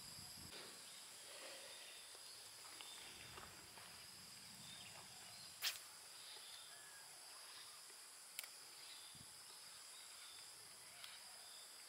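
Faint outdoor ambience of insects giving a steady high-pitched drone, with two short sharp clicks about six and eight and a half seconds in.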